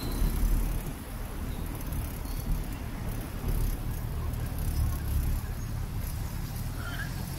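Low, uneven wind rumble on the microphone of a camera riding along on a bicycle, over city street traffic noise.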